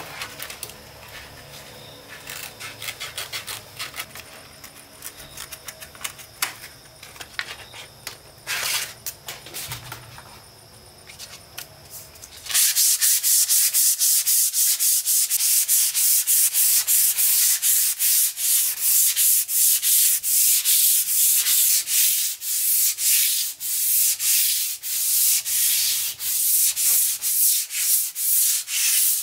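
Hand-sanding a large wooden tabletop with a small pad: fast back-and-forth rasping strokes, about three a second, that start abruptly about halfway through. Before that there are only faint scattered taps.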